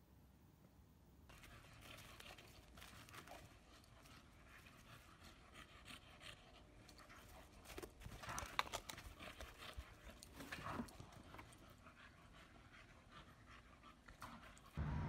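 A dog panting, with irregular short scuffing noises that grow louder for a few seconds near the middle.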